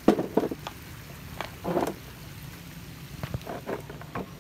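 A series of short knocks and rustles from a phone camera being handled and swung around, over a steady low hum.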